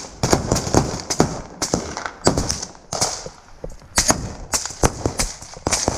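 Running footsteps crunching over rubble and debris, with combat gear rattling: a quick, irregular series of sharp knocks.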